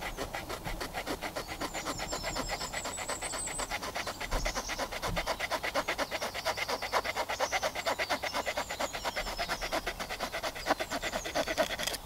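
Victorinox Camper Swiss Army knife's small folding wood saw cutting through a thin branch in rapid, regular back-and-forth strokes, several a second.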